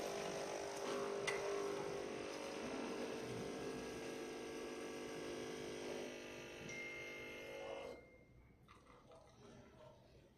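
Nespresso coffee machine's pump running with a steady hum, cutting off suddenly about eight seconds in.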